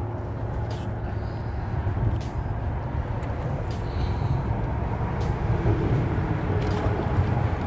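Steady low outdoor rumble with a few faint clicks about every second or two, the clicks coming from steps on the shoreline rocks.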